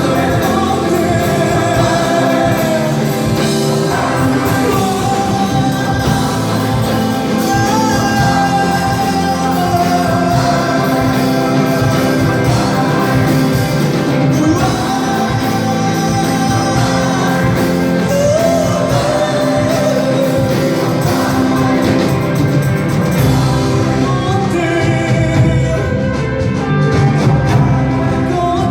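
Live rock band playing at full volume: drums, guitars and bass under a wavering sung melody. The cymbals drop out for a moment near the end and then come back in.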